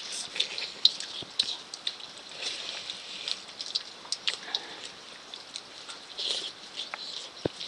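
Eating sounds: a rapid scatter of small wet smacks and clicks from mouths chewing and fingers scooping rice off steel plates, with one sharper knock near the end.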